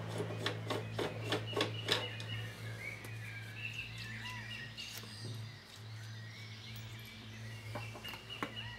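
Birds chirping, with a run of quick sharp clicks in the first couple of seconds as the rifle is handled after a shot. A steady low hum runs underneath.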